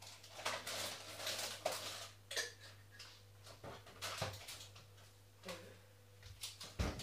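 Crockery and cutlery being handled while a cup of tea is made: a scattering of short clinks and knocks over a low steady hum.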